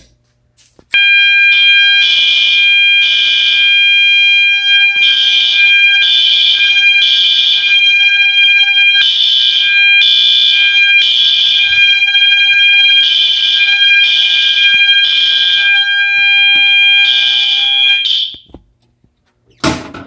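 Two System Sensor fire alarm horns, a SpectrAlert Advance horn strobe and an older MASS horn, sounding together after a pull station is activated: a steady high tone runs under loud blasts in the temporal-three pattern, three blasts then a pause, over and over. Both stop together about 18 seconds in as the alarm is silenced.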